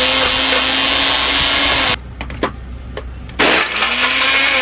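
Electric blender running in two bursts: the motor speeds up and holds steady, cuts off about two seconds in with a few clicks, then starts again about a second and a half later.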